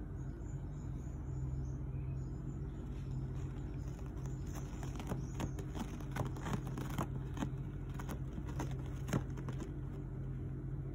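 A cat's paws and claws pick and scratch at a coir doormat, a scattered run of small dry clicks from about four to nine seconds in. Under it is a steady low rumble.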